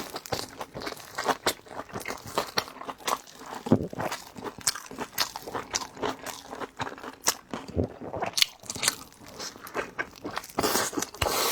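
Close-miked chewing of big cabbage-and-pork steamed dumplings: bites and chewing make a fast, irregular run of crunchy mouth clicks.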